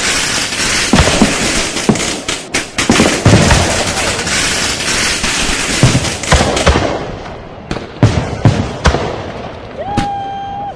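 Firecrackers and fireworks going off in a dense barrage of crackling and bangs, thinning after about six and a half seconds to scattered single bangs. Near the end a single held whistling tone sounds for about a second.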